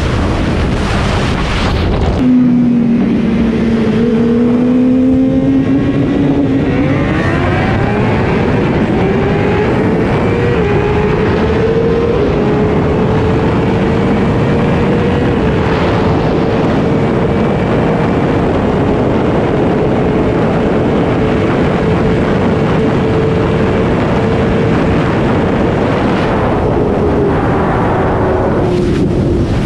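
2017 Suzuki GSX-R750's tuned inline-four engine pulling hard at full throttle from a roll, climbing through several gear changes and then holding a near-steady high note at high speed, easing slightly near the end. Heavy wind roar is mixed in over the bike-mounted microphone.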